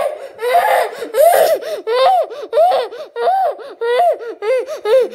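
A young child's voice making a run of short, high, rising-and-falling vocal sounds, about two a second.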